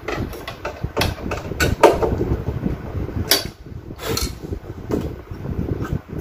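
Screws being tightened on a countertop halogen oven's metal housing: irregular clicks, scrapes and knocks of a screwdriver and metal parts being handled, loudest about two seconds and about three seconds in.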